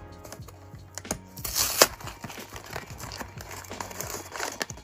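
Printed paperboard box being torn open by hand: its top strip is ripped and peeled back in short tearing and crinkling strokes, the loudest sharp rip a little under two seconds in.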